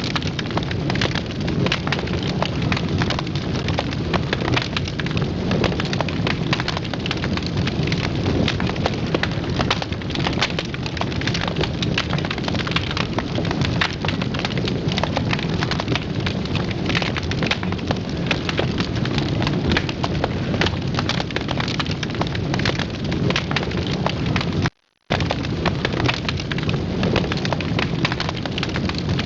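Fire burning in a fireplace, crackling and popping continuously over a dense hiss. The sound cuts out completely for a split second near the end.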